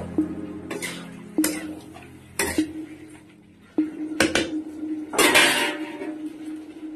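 Metal spatula knocking and scraping against a metal kadai while stirring thick mutton masala: a run of separate clanks, each followed by the pan ringing, with a longer scrape a little after five seconds in.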